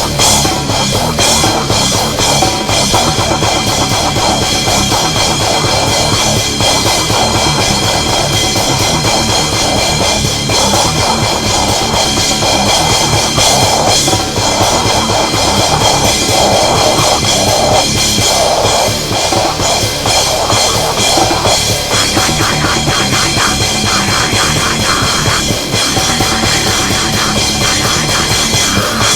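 Loud, heavily distorted extreme metal with a drum kit, a dense unbroken wall of sound; the texture shifts slightly about 22 seconds in.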